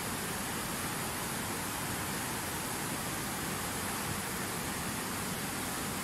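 Steady rush of a fast whitewater mountain river pouring over rocks, an even hiss with no breaks or changes.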